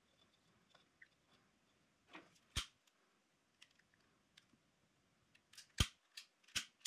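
A handful of sharp clicks and taps from hands working small wire connectors and a pocket lighter at a table saw's switch wiring, the loudest about six seconds in as the lighter is lit.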